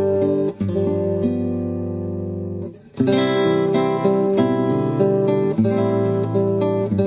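Intro music: acoustic guitar playing, with a short pause about three seconds in before it picks up again.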